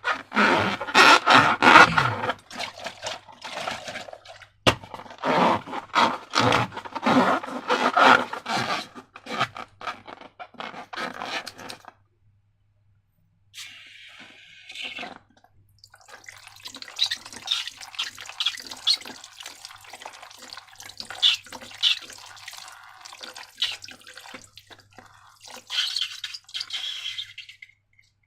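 Slime being mixed and squished, giving wet, sticky crackling and squelching in dense runs, with a short pause about halfway through.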